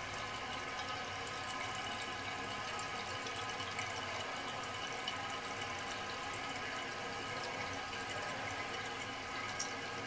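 Old Fluidmaster 400 fill valve refilling a 1984 Crane Radcliffe toilet tank after a flush: a steady hiss of water running in.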